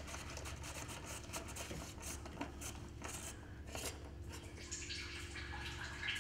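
Irregular small clicks and metallic clinks from hands and a tool working at the oil filter housing on top of a BMW 320d diesel engine, over a low steady hum.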